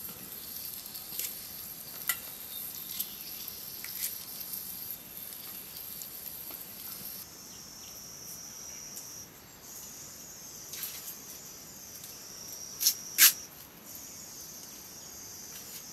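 Steady high-pitched chorus of crickets, with scattered light clicks. A little past halfway the chorus gives way to a lower-pitched buzz, and near the end two sharp knocks close together stand out as the loudest sounds.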